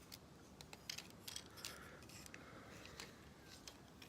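Faint, scattered clicks and taps of a plastic action figure being handled and turned over, its parts knocking lightly.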